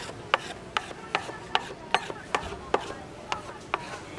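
Rhythmic sharp knocks from kitchen work, evenly spaced at about two and a half a second.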